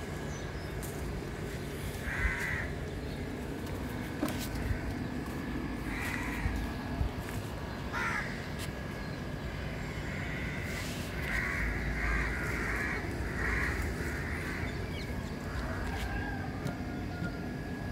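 Crows cawing: single harsh caws a few seconds apart, then a quick run of several caws in the latter half.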